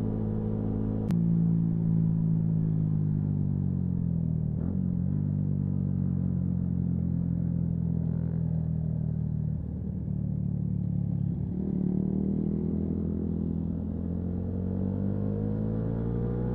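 Yamaha MT-125's single-cylinder 125 cc engine running under way, its pitch dropping briefly at a few gear changes and climbing steadily near the end as the bike accelerates.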